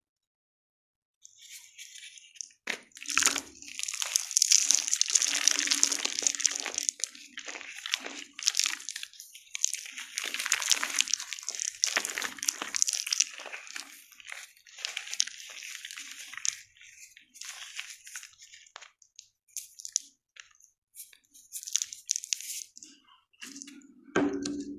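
Block of gym chalk being crushed and crumbled by hand, a dense crisp crackling and crunching. It starts about a second in and comes in busy stretches of crumbling with short lulls between them.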